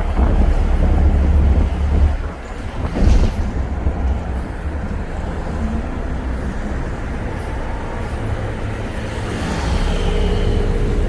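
City bus heard from inside the cabin: engine and road rumble while it drives, heaviest in the first couple of seconds, with a thump about three seconds in.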